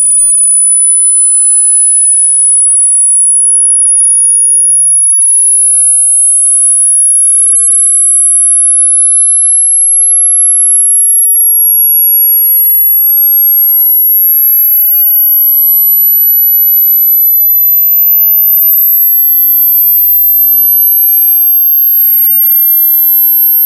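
A single very high-pitched electronic sine tone, loud and unbroken, creeping slowly upward in pitch in small steps.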